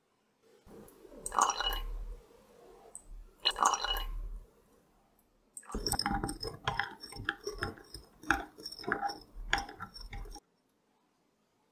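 Two short crunching noises about a second and three and a half seconds in, then a quick irregular run of clinks and taps as a straw stirs a drink in a glass.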